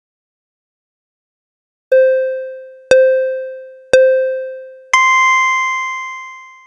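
Silence, then an electronic countdown: three short beeps a second apart, then one longer, higher beep that fades out.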